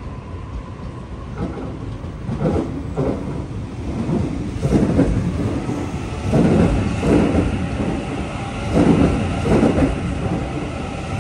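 Double-deck electric suburban train running past along the platform. The wheels knock in pairs, car after car, about every two to three seconds, over a steady rolling noise that grows louder as the train comes alongside.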